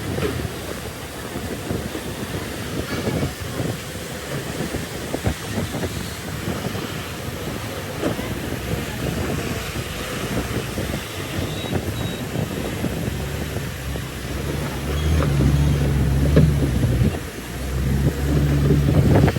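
Bulldozer's diesel engine running with a heavy rumble. About three-quarters through it grows louder into a steady low drone, drops briefly, then rises again near the end.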